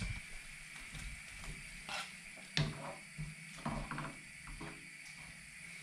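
Light, scattered knocks and scrapes of kitchen utensils: a knife cutting on a wooden chopping board and a wooden spoon stirring in a frying pan.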